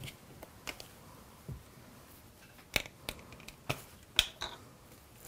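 A few scattered light clicks and taps as a salt grinder is handled over a metal mixing bowl, about one every half second to a second, with no steady grinding rhythm.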